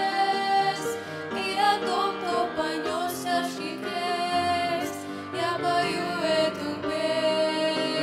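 Three women singing a slow hymn together into microphones, over musical accompaniment.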